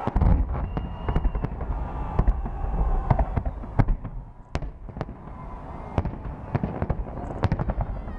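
Fireworks display: a heavy boom right at the start, then a string of sharp bangs and cracks from shells bursting at irregular intervals, over a continuous low rumble.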